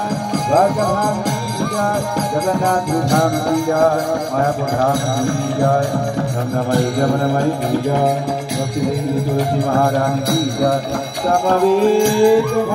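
Devotional kirtan: a voice leading a chant over a sustained harmonium drone, with small hand cymbals jingling and percussion keeping time.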